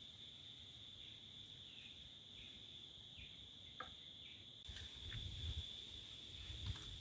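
Steady, high-pitched drone of insects in the background. A few short faint chirps are heard in the first half, and soft low bumps and knocks are heard in the last couple of seconds.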